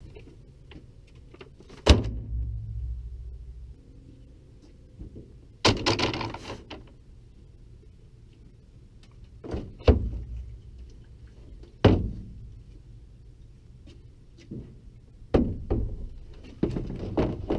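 Lawn-care gear (a rake, paper leaf bags, gas cans, a string trimmer) being set down in a pickup truck's plastic bed liner: a series of irregular knocks and clatters with quiet between. The loudest come about two seconds in and around ten seconds, and one near six seconds carries a longer rustling clatter.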